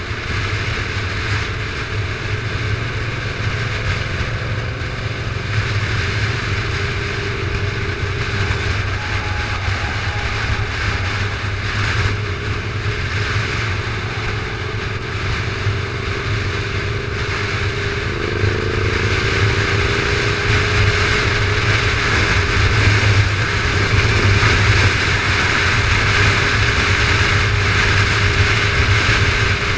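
Onboard sound of a motorcycle cruising at road speed: a steady engine note mixed with wind rushing over the microphone, a little louder from about two-thirds of the way through as the engine note rises slightly.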